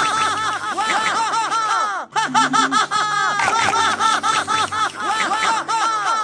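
Rapid, high-pitched 'ha-ha-ha' laughter repeated over and over like a loop, laid over sustained background music notes, with a brief break about two seconds in.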